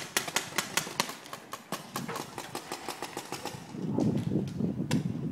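Paintball marker firing in rapid sharp pops, about four a second, thinning out after about two and a half seconds, with one more shot near the end. From about four seconds in, a low rumble is on the microphone.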